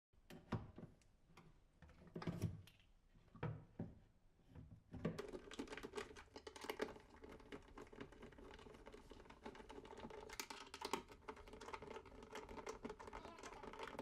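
Faint clicking and knocking of the second part of a cabinet-door lifting mechanism being fitted and screwed into the side of a kitchen cabinet: a few separate knocks at first, then denser tapping over a faint steady hum from about five seconds in.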